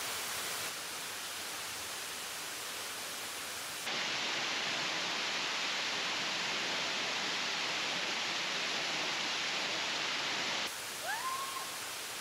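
Small waterfall pouring into a shallow rock pool, a steady rushing of water that is louder from about four seconds in until nearly eleven seconds. Near the end a person gives a brief high yelp.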